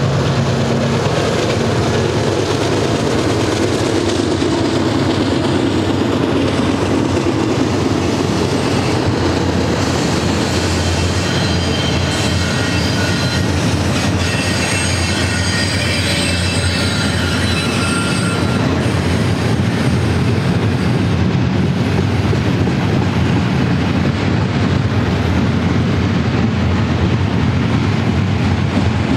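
Double-stack intermodal well cars rolling past at speed: a steady heavy rumble of steel wheels on rail with clickety-clack, and the diesel drone of the trailing GE locomotive dying away in the first couple of seconds. Midway, for several seconds, thin high-pitched wheel squeals ring over the rumble.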